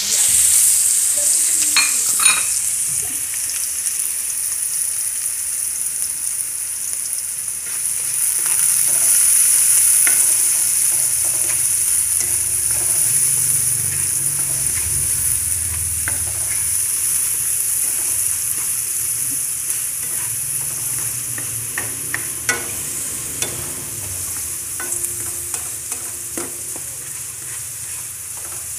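Diced carrots and onion sizzling steadily in hot oil in a wok-style pan as they are sautéed, with a spatula scraping and tapping against the metal pan now and then.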